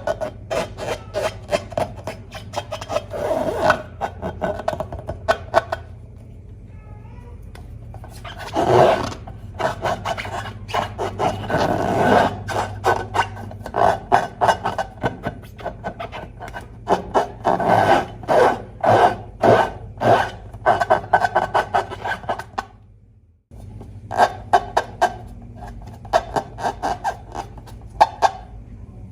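Slime being squeezed and stretched by hand, making rapid sticky clicks and crackles with rubbing squelches and a brief gap about three quarters of the way in.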